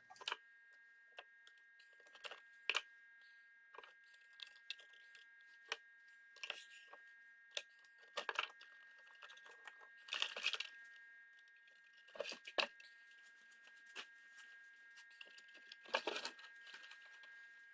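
Faint scattered clicks and short crinkling, tearing rustles, about a dozen spread out with gaps between them, from scrap speaker parts and wire being handled and pulled apart.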